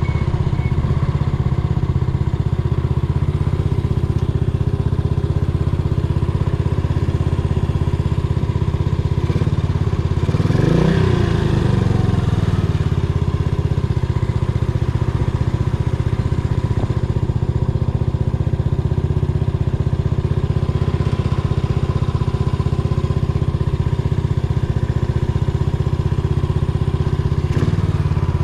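Yamaha SR400's single-cylinder engine running steadily under way, with one brief rise and fall in pitch near the middle.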